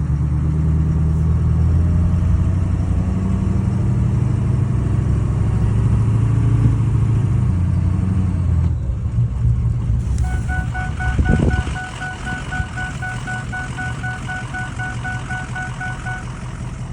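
The 2004 Ford F-250's 6.0 L Power Stroke V8 diesel idling while still cold, loud and low at first, then settling lower after about half way. A rapid, evenly repeating warning chime sounds for about six seconds in the second half.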